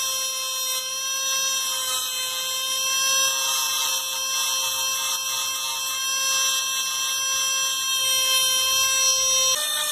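Dremel rotary tool with a small grinding stone running at high speed, grinding steel with a steady high-pitched whine that dips slightly in pitch under load. The whine cuts off just before the end.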